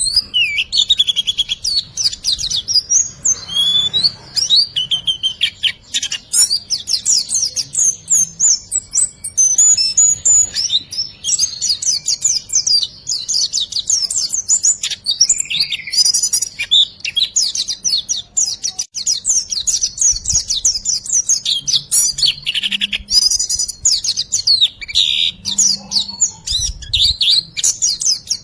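Small songbird singing a continuous, rapid string of high, quick chirps and trills in the 'riwikan' style, played as a masteran training recording for cage songbirds.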